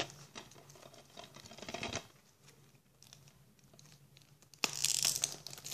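Hands handling a plastic DVD case: faint scrapes and taps, then a sudden louder rustling scrape about four and a half seconds in.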